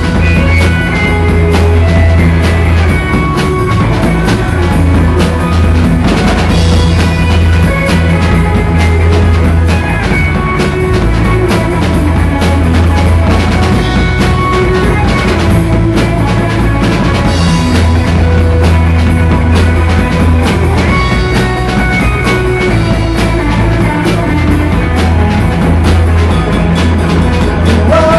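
A live rock band playing loud: two electric guitars, electric bass and a drum kit.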